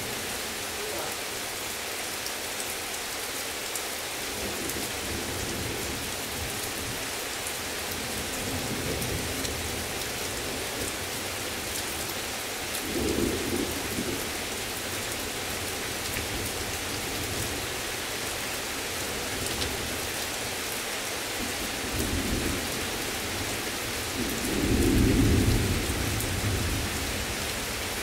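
Heavy rain falling steadily, with thunder rumbling several times; the loudest rumble comes near the end.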